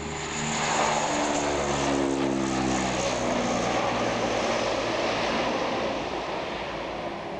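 Transall C-160's twin Rolls-Royce Tyne turboprops at take-off power as it lifts off and passes close by. The propeller drone drops in pitch as the plane goes past, leaving a steady roar that eases near the end as it climbs away.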